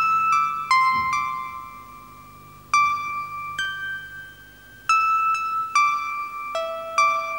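Music box playing a slow, high tinkling melody, one plucked note at a time, each note ringing and fading before the next.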